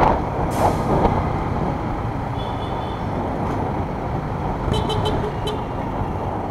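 Motorcycle riding in slow city traffic: a steady rumble of engine, road and wind noise. A vehicle horn gives a few short toots about five seconds in.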